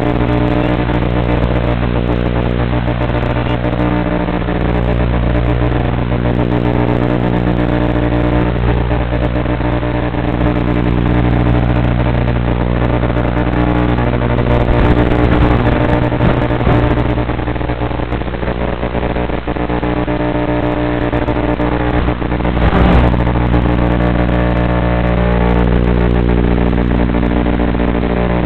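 Steady, loud electrical buzz of audio interference on the tricopter's FPV video feed. It holds much the same tone throughout, shifting slightly now and then.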